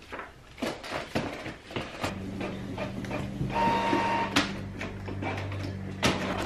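Clicks, then a Canon inkjet printer running from about two seconds in: a steady motor hum with a short high whine near the middle and a sharp click near the end.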